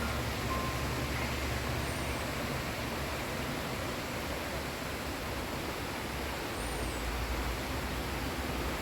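Floodwater rushing in an overflowing creek: a steady, even rushing noise with a low rumble underneath.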